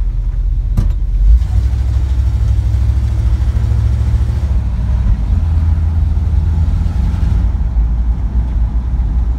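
1955 Chevy pickup's engine running with a steady low rumble, heard from inside the cab while driving slowly, with a single sharp click about a second in.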